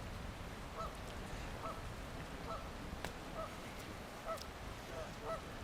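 Geese honking faintly at a distance: short calls repeated about once a second, over a steady low rush of water and rain.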